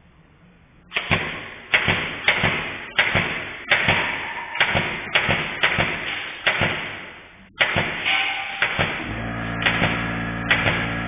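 Pneumatic nail gun firing a rapid series of sharp shots, about ten in eight seconds, each with a short hissing tail. A little over halfway through, an air compressor starts and runs with a steady hum while a few more shots go off.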